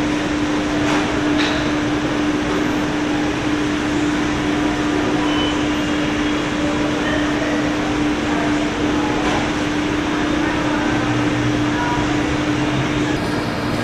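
Steady mechanical hum with one constant low tone under an even rushing noise, and a few faint clicks.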